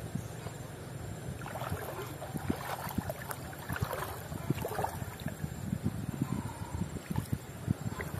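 Shallow stream running over stones, with a hooked fish thrashing and splashing at the surface as it is reeled in, and scattered short knocks and splashes throughout.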